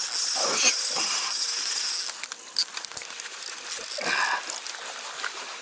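Fishing reel's drag buzzing loudly as line is pulled off during a fight with a hooked bass, cutting off about two seconds in, followed by scattered clicks and handling noises.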